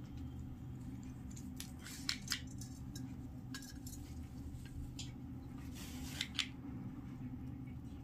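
Scattered small, sharp clicks and scrapes as two sun conures play on a hanging coconut-fibre nest, beak and claws working on each other and the fibre, in two clusters a few seconds apart over a steady low hum.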